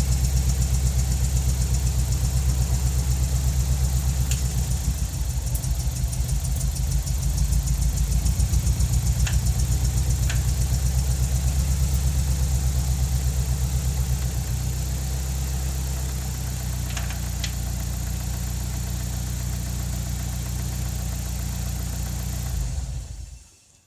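Nissan 200SX engine idling, with a pulsing, uneven beat that settles into a steadier run about two-thirds of the way through. A few faint clicks sound over it, and the sound cuts off shortly before the end.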